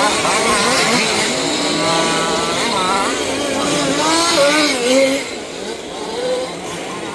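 Several 1/5-scale two-stroke petrol RC off-road cars racing, their small engines revving up and down over one another as they accelerate and brake around the track.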